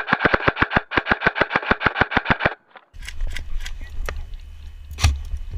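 Krytac Trident Mk2 airsoft electric rifle with a Gate Titan trigger unit firing a rapid, even string of shots, about eight a second, for roughly two and a half seconds, then stopping. After a brief pause there is a low rumble of handling noise with scattered pops and one sharp crack about five seconds in.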